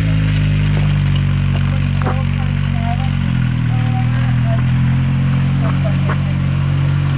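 An engine idling steadily, its pitch shifting slightly about three seconds in, with a few short high chirps above it.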